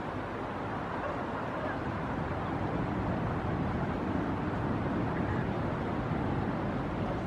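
Steady rushing noise of surf and wind along the shore, with no distinct calls or knocks.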